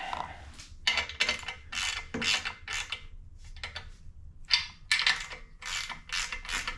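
Hand ratchet wrench being worked back and forth, a run of short clicking strokes about two a second, as bolts on a log splitter are snugged down but not fully tightened.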